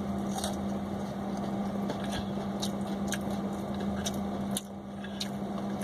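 Chewing a bite of crispy fried chicken strip, with scattered sharp mouth clicks, over a steady low hum inside the car.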